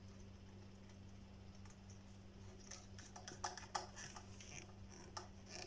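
Screwdriver working the screws of a car amplifier's speaker terminal block, with a run of small, sharp metallic clicks and scrapes in the second half. A faint steady low hum sits underneath.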